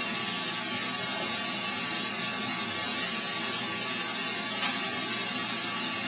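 Steady rushing hiss of a bloomery iron-smelting furnace under forced air blast, the blower and fire running without a break.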